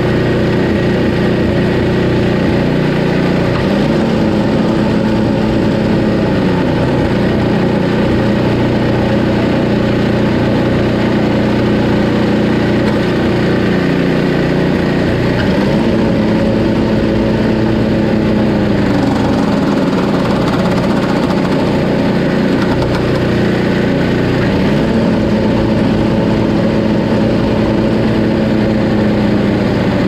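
Tecumseh Snow King 5 hp single-cylinder engine of a Craftsman 522 two-stage snowblower running steadily. Three times a higher hum comes in for a few seconds and sags away as it fades, as the auger drive is engaged and let coast down with its pulley brake held off.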